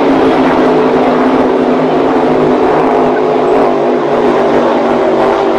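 Speedboat engine sound effect, running steadily at high revs with an unchanging pitch. It starts and cuts off abruptly.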